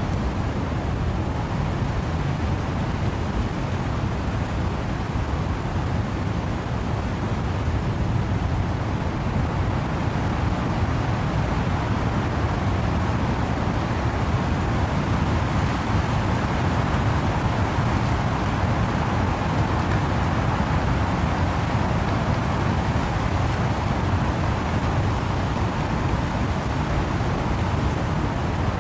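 Wind and rain rushing through trees in a dense, steady wash of noise with a deep rumble underneath, growing a little louder for several seconds past the middle.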